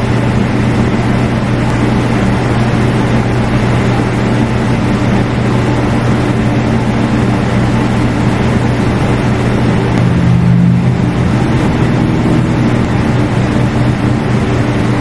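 Steady, even noise with a low hum underneath, like a running machine such as a fan or air conditioner.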